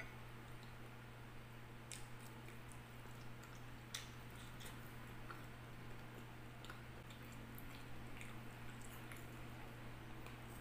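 Close-miked chewing of a leafy vegetable salad, soft wet mouth sounds with scattered small ticks and a few sharper clicks, the loudest about four seconds in, over a steady low hum.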